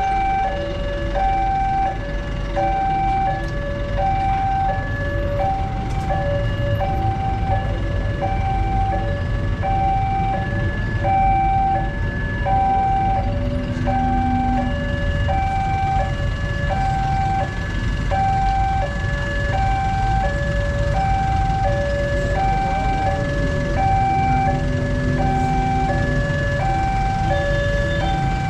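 Indonesian railway level crossing warning alarm sounding: an electronic two-tone signal alternating high and low about once a second, steady and unbroken, over the low rumble of road traffic. It is the warning that a train is approaching the crossing.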